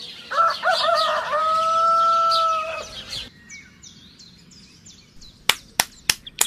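A rooster crowing: a few short notes, then one long held note, with small birds chirping. Near the end come three sharp slaps.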